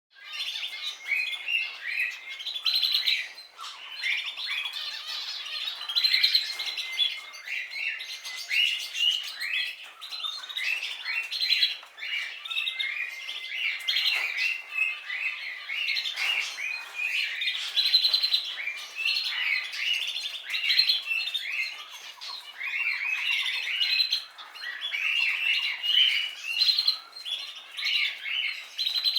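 Canary singing: a long, continuous run of rapid chirps and trills, with only brief dips.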